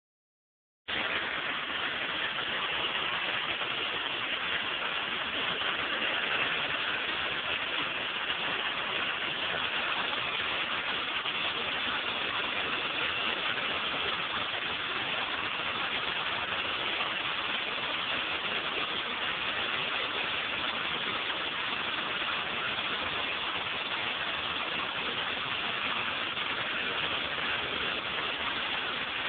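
Pressure washer with a turbo nozzle spraying a concrete sidewalk: a steady rush of water over a running engine, starting abruptly about a second in.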